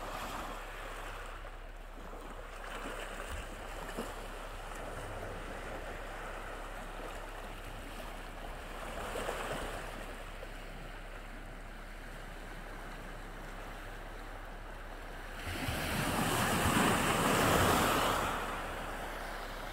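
Sea waves washing on a shore in a steady wash, with a small swell about halfway through and a louder surge of water near the end.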